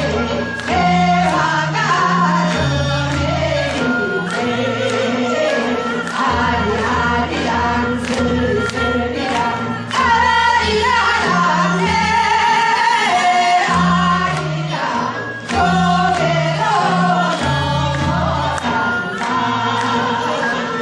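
Music with singing: vocal melody over a moving bass line of held notes and a regular drum beat.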